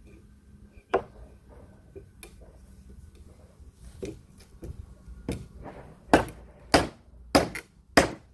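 Hammer striking the top boards of a wooden pallet: a few scattered knocks, then a steady run of hard blows about every half second in the second half, knocking the boards loose from the pallet.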